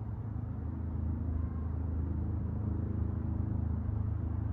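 Steady low rumble, a little louder from about a second in.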